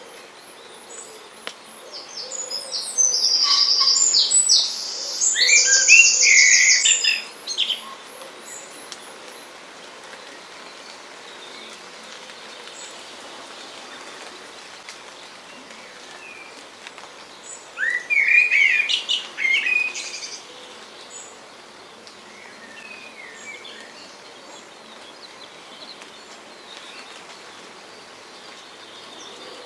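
A bird singing loudly in two bursts: a long phrase of high, quickly repeated trilling notes a couple of seconds in, and a shorter, lower phrase about ten seconds later.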